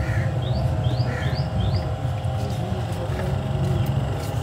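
A steady low mechanical rumble, with a bird chirping a quick run of four short rising notes in the first two seconds.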